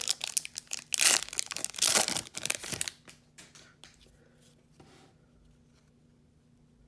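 A foil trading-card pack wrapper being torn open and crinkled for about three seconds, then faint rustling as the cards are handled.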